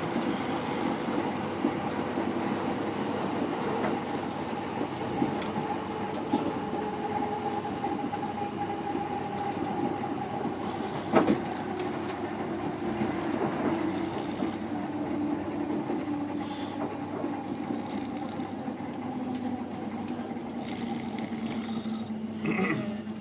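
Electric passenger train running, heard from inside the carriage: a steady rumble with the whine of the traction motors, which slowly drops in pitch in the second half. A single sharp click comes about eleven seconds in.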